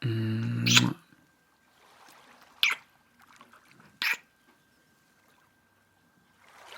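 A man's low, steady 'mmm' hum lasting about a second, then three short, sharp kissing sounds spread over the next few seconds.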